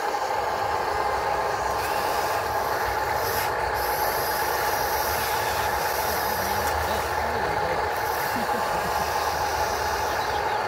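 Electric motors and gearing of remote-control construction models, mainly the toy excavator working its arm, whining steadily at one pitch.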